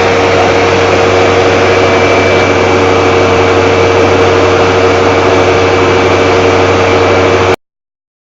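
Loud, steady motor noise with a constant whine, cutting off suddenly near the end.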